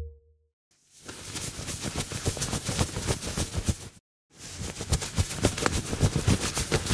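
Fast running footsteps, a rapid patter of quick footfalls of a person sprinting, fading in about a second in. They stop abruptly, then start again after a short gap.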